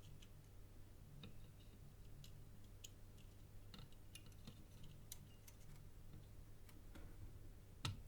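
Near silence with faint, scattered small clicks and taps from hand-soldering parts onto a circuit board, over a low steady hum.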